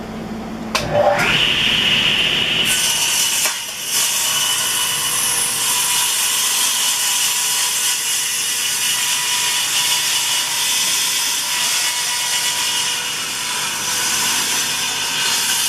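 Electric power saw whose motor winds up with a rising whine about a second in, then runs steadily while cutting a glued-up wooden board to length, with a brief dip in the cut at about three and a half seconds.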